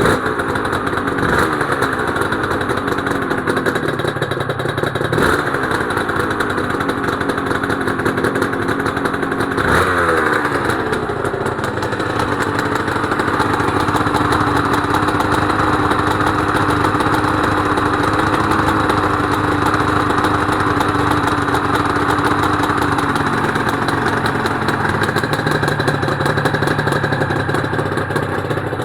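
Honda NSR250R-SP's two-stroke V-twin running through JHA expansion-chamber pipes, freshly restarted: the throttle is blipped three times in the first ten seconds, each rev rising and falling, then the engine runs steadily.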